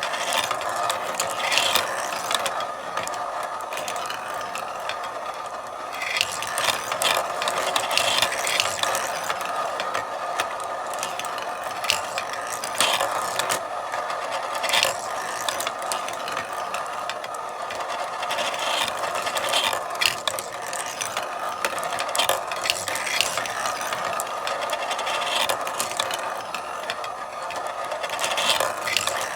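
Marbles rolling along a marble run: a steady, dense rattle with frequent sharp clicks as they clack against the track and each other.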